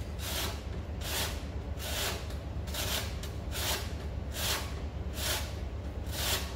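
Lemon rubbed down a stainless-steel box grater to take off the zest, a rasping scrape repeated in a steady rhythm of about one stroke every second, over a steady low hum.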